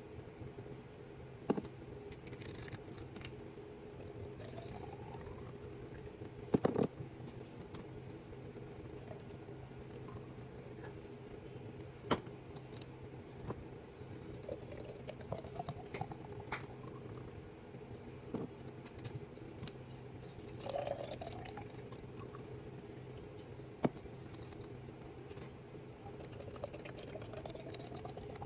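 Liquid poured into containers, the pitch rising several times as each one fills, with a few sharp knocks and clinks of containers being handled and set down, over a steady low hum.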